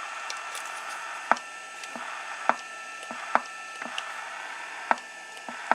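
Microphone push-to-talk key of a Galaxy DX979 CB radio clicked about six times at uneven intervals over a steady static hiss, with a faint steady tone in some stretches between the clicks. The radio keys only some of the time, a fault the owner puts down to bad wiring, probably in the mic jack.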